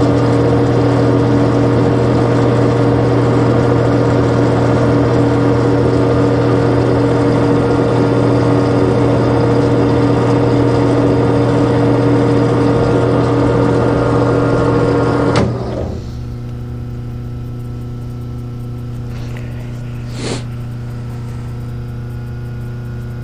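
Colchester 15x48 metal lathe running steadily with a loud machine hum; about fifteen seconds in the sound drops sharply to a quieter steady hum.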